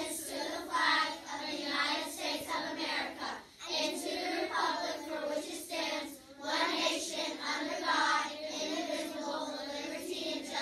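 A class of children reciting the Pledge of Allegiance together in unison, in phrases with brief pauses between them.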